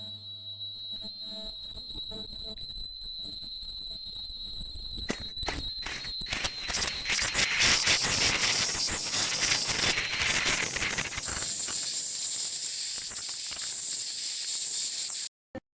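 20 kHz ultrasonic welding system running with a steady high-pitched whine, joined about five seconds in by a loud crackling hiss. The hiss builds, eases slightly about eleven seconds in, and cuts off suddenly near the end.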